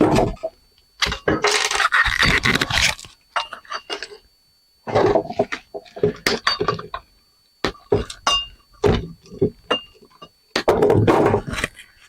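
Metal scrap parts from dismantled outdoor light fixtures clattering and clinking as they are handled, knocked and dropped. Irregular knocks with a few short ringing metal pings.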